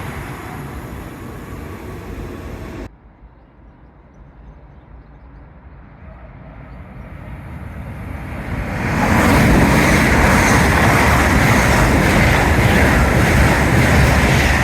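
Passenger trains passing at speed. One train's noise is dying away when it cuts off abruptly about three seconds in; then another approaches, growing louder over several seconds, and goes by loudly from about nine seconds in.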